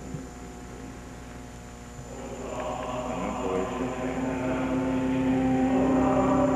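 Church music swelling in: sustained chords start quietly about two seconds in and grow steadily louder, ending in a held chord.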